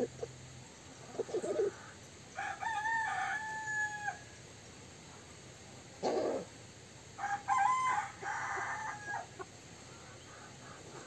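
Rooster crowing twice, each crow about two seconds long, with a few short hen clucks between.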